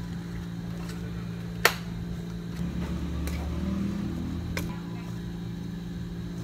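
Metal measuring scoop clicking against a plastic powder canister as powder is scooped and poured into plastic cups. A sharp click about two seconds in, a soft scraping rustle after it, and another click near five seconds, over a steady low hum.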